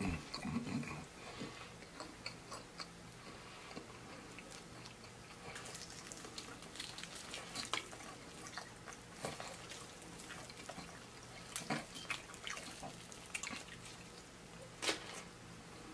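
Close-up eating sounds of fried chicken wings: wet chewing and lip smacks, with scattered crisp clicks and crackles as the wings are torn apart by hand and bitten.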